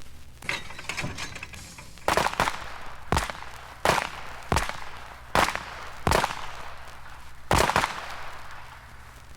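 Rapid-fire gunshots on a firing range. Several shooters fire irregularly, giving about a dozen sharp shots, some in quick pairs, after a few faint ticks in the first second or so.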